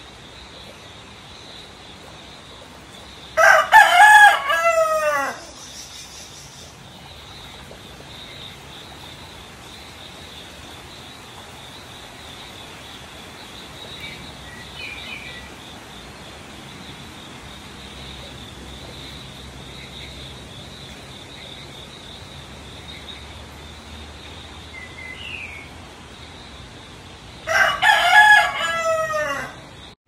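A rooster crowing twice, about three seconds in and again near the end, each crow a couple of seconds long and falling in pitch at its close. A steady faint hiss with a thin high tone runs underneath.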